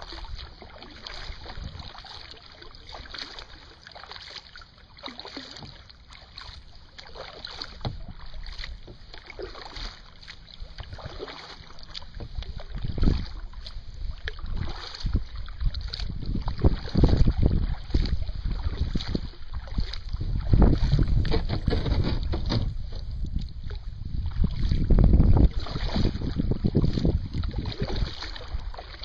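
Kayak paddle blades dipping and splashing in calm water, stroke after stroke, with gusts of wind buffeting the microphone that grow heavier in the second half.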